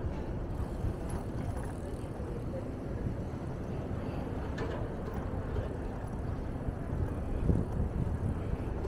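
Steady low rumble of a bicycle riding through city streets amid traffic, with a light click about halfway through.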